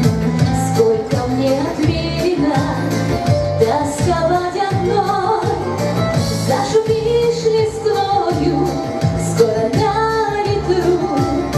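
A woman singing into a handheld microphone, amplified, over backing music with a steady beat of about two strokes a second.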